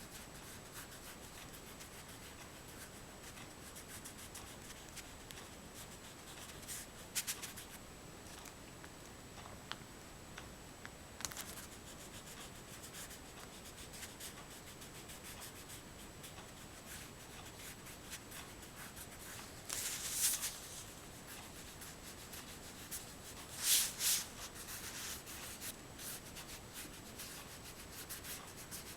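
Oil pastel rubbing and scratching across paper in many quick short strokes, with a few louder scrubbing passes about seven, twenty and twenty-four seconds in.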